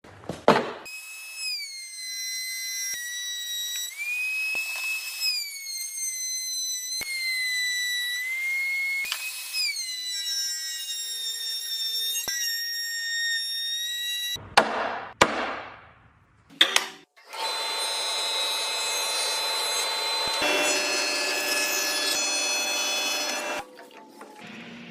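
High-speed power tool motors whining as they cut wood. The pitch sags and recovers several times as the bit takes load. After a brief break near the middle, a different steady machine whine with many tones runs until near the end.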